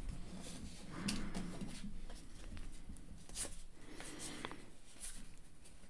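Trading card pack being opened and its cards handled: faint crinkling of the pack wrapper, then soft rustles and clicks of card stock sliding against card.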